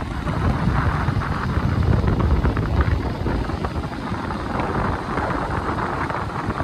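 Wind buffeting the microphone over a steady rumble of road and traffic noise, recorded from a moving vehicle.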